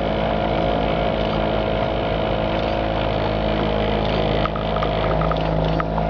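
An engine running steadily at constant speed, a continuous drone with a held hum. A few light ticks or rattles come through in the last second and a half.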